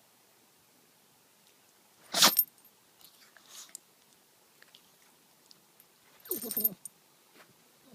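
A chihuahua sneezing twice: a sharp, short burst about two seconds in and another about six and a half seconds in, with faint snuffling noises between.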